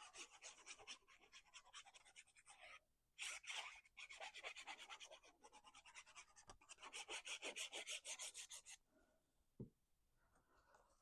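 Quick, even rubbing strokes on cardstock, faint, in runs of several seconds with a brief pause about three seconds in. The strokes stop near the end, followed by a single soft tap.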